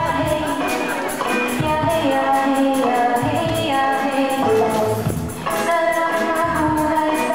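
A live band plays a song, with a woman singing lead into a microphone and a tambourine shaken and struck in time with the beat.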